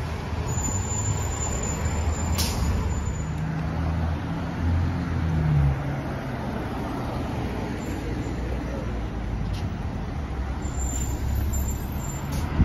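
City street traffic: cars driving past and the low engine rumble of a New Flyer D40LF diesel transit bus. The engine sound swells for a few seconds near the middle.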